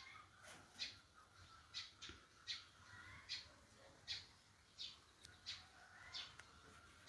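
Birds chirping: a steady run of short, high chirps, about one every three-quarters of a second, over a fainter, lower twittering.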